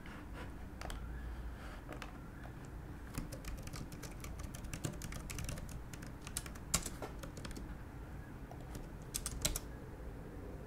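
Typing on a computer keyboard: scattered key clicks, in quick runs around the middle and near the end, over a low steady hum.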